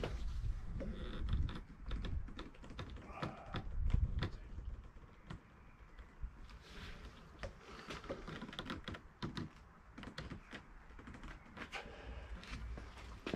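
Aluminium/chrome window trim strip on a BMW F31 door being pulled off by hand, giving a run of irregular clicks and small knocks.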